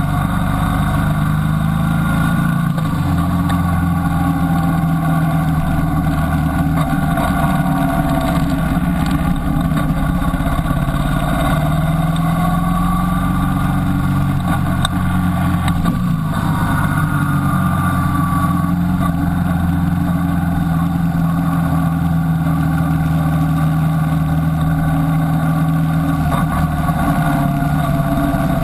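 Motorcycle engine running steadily at road speed, heard from the bike itself, its pitch slowly rising and falling as the rider opens and eases the throttle through the bends.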